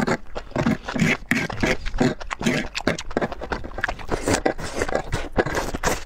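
Close-up wet slurping and mouth sounds of a person sucking up enoki mushroom strands in chili oil, in many quick, irregular slurps.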